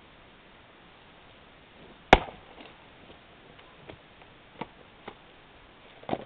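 One hard blow of an 8 lb splitting maul on a steel wedge set in a seasoned birch log, about two seconds in. A few light knocks follow, and a duller knock comes near the end.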